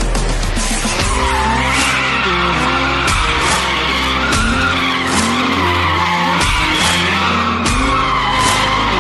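Nissan 350Z drifting on a skid pan: its tyres squeal in a long screech that wavers up and down in pitch as the car slides, with the engine revving under it.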